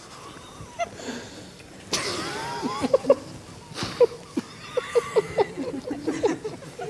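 Several people chuckling and snickering in short, stifled bursts, with sharp breathy huffs about two and four seconds in.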